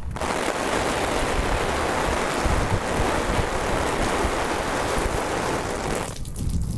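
Water showering down onto an open umbrella and the person under it, a steady rush like a heavy downpour that starts suddenly and cuts off about six seconds in.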